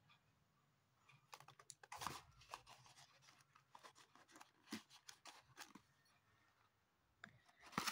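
Faint rustling, crinkling and scraping of paper and thin card as a small cardboard surprise box is handled and opened, in short crackling bunches with a pause before a last few crackles near the end.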